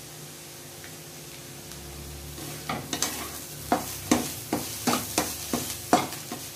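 Steel spatula scraping and knocking against a non-stick kadhai as grated carrots frying in ghee are stirred quickly, about two strokes a second. The strokes begin a little over two seconds in, after a faint steady hum.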